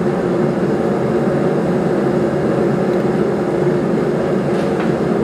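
Steady, even roar of a blacksmith's forge running, with no hammer blows.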